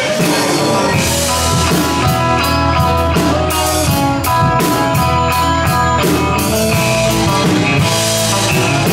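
Live rock band playing an instrumental passage without vocals: electric guitars playing sustained melodic notes over a drum kit and a steady low bass.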